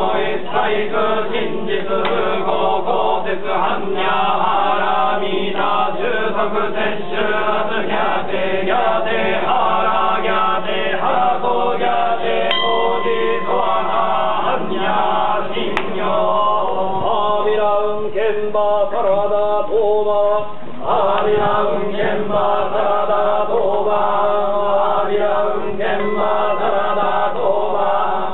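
Many men's voices of yamabushi (Shugendo mountain ascetics) chanting a sutra together in one continuous, steady chant.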